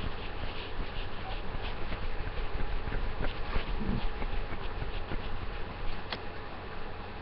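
Steady hiss and low buzzing hum of a webcam microphone, with a few faint clicks and small knocks and a sharper tick about six seconds in.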